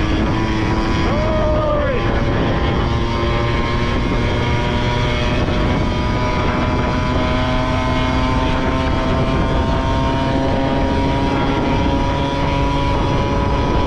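Honda Topic moped's small two-stroke engine running at a steady cruising pitch while riding, its exhaust drone mixed with road and wind noise. The scooter has a freshly rebuilt engine and a re-tuned carburettor.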